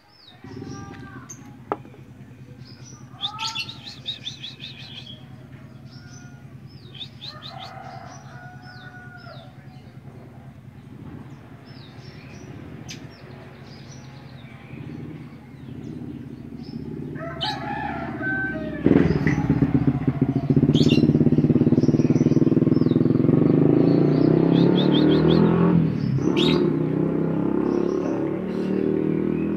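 Small caged finches chirping with short high calls throughout, over a steady low rumble. About two-thirds of the way in, a much louder steady rushing noise sets in and runs almost to the end.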